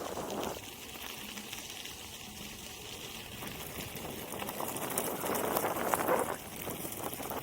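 Wind buffeting the microphone of a rider moving on an electric unicycle, an uneven rushing that drops after about half a second and swells again near the end.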